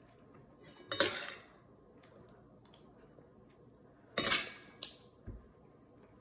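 Metal spoon and fork scraping across a ceramic dinner plate as fried rice is scooped up, twice: about a second in and again about four seconds in. A light clink follows the second scrape.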